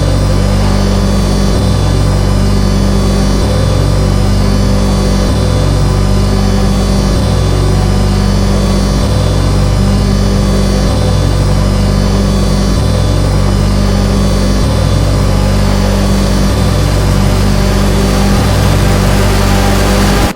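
Harsh noise music: a loud, dense wall of distorted noise over a low pulsing bass pattern that repeats about every two seconds.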